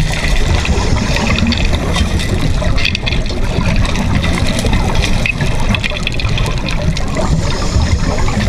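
Underwater water noise heard through a camera housing: a steady, muffled rumble with irregular bubbling and crackling, as from scuba divers' exhaled bubbles.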